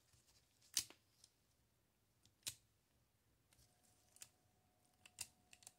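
Sparse, sharp clicks of the rusty automatic numbering stamp's metal parts as it is handled, the loudest about a second in, then a few lighter ones spread over the rest.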